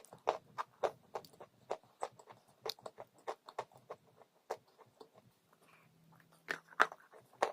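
Close-miked chewing of crunchy dry chalk: a string of sharp, irregular crunches, a few each second, with a short lull before louder bites near the end.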